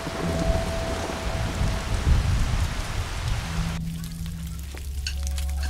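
Steady heavy rain falling, which cuts off sharply about four seconds in, leaving a low steady drone.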